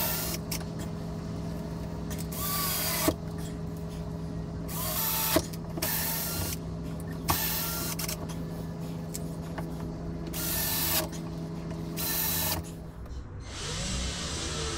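Cordless drill driving screws into a white laminated board in several short bursts, each a second or less, over a steady low hum. About a second before the end the hum stops and a steady hiss takes over.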